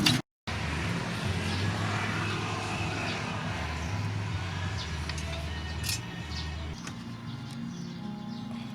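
Background music with low bass notes that change every second or two, over a faint steady noise.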